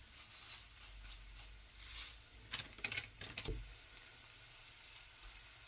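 Sliced garlic and chili flakes frying gently in olive oil in a pan, a faint steady crackle, with a few sharp clicks from about two and a half to three and a half seconds in.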